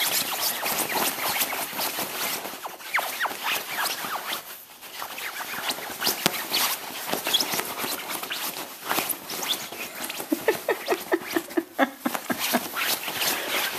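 A puppy digging at a quilted fabric dog bed: rapid scratching and rustling of claws and paws on the fabric, with a few short squeaks among the scratches.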